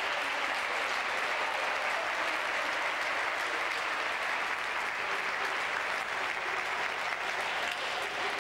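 People applauding steadily in a sports hall: continuous clapping with no break.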